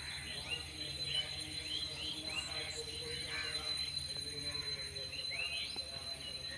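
Outdoor garden ambience: small birds chirping with many short, arching calls, over a steady high-pitched tone and a low background hum.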